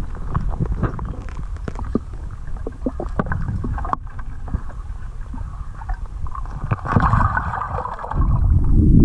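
Underwater sound heard through a camera's waterproof housing: a muffled low rumble of flowing river water, with many faint clicks and ticks, a brief hiss about seven seconds in, and a louder low whoosh near the end.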